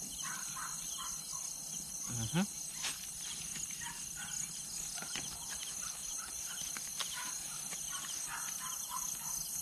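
Night crickets and other insects chirping steadily in a high, pulsing chorus, with scattered lower chirps and a few faint clicks.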